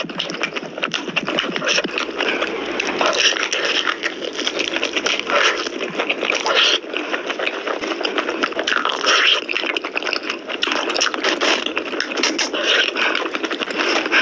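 Eating sounds of mutton nalli curry: continuous wet chewing and mouth noises, with many small clicks and crackles.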